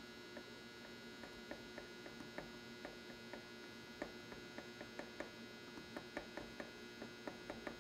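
Low steady electrical hum with faint, irregular small ticks, a few a second, as a small paintbrush and touch-up paint are worked against the painted fender.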